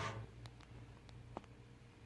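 Quiet room with a faint low hum and two faint light clicks, one about half a second in and one a little past the middle.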